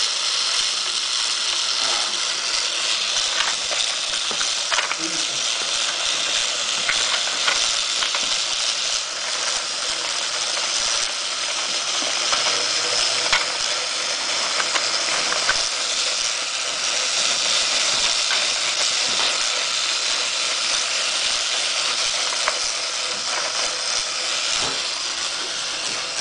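Battery-powered plastic toy train set running: its motor, gears and wheels make a steady hissing rattle with scattered small clicks.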